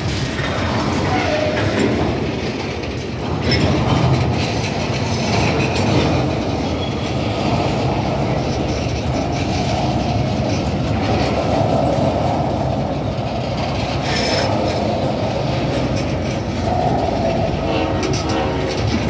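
Freight train of tank cars and covered hoppers rolling past close by: steady rumble of steel wheels on the rails, with occasional clanks and a faint squeal.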